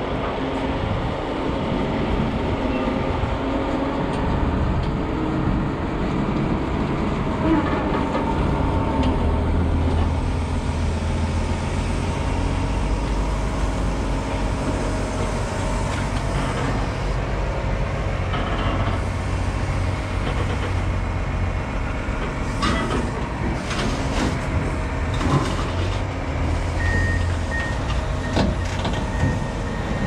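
Diesel engine of a John Deere wheel loader running under load as it carries a combine head to a flatbed trailer, with several metal clanks about three-quarters of the way through as the head is set down on the deck. Near the end a reverse alarm starts beeping.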